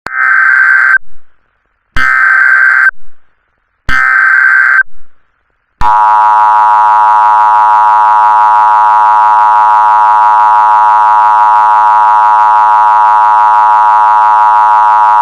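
Emergency Alert System tones: three bursts of SAME header data, each about a second long and two seconds apart, followed about six seconds in by the loud, steady two-tone EAS attention signal.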